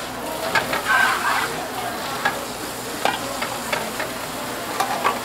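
Tap water spraying from a pull-down sink sprayer into a plastic colander in a stainless steel sink, a steady hiss. Several short knocks and clatters sound in it as the colander is handled against the sink.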